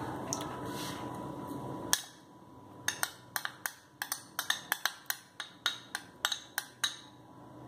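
A metal spoon tapping and scraping against the rim of a small glass bowl to knock ginger-garlic paste out of it: a quick irregular run of light clicks, about four or five a second, after a faint steady hum.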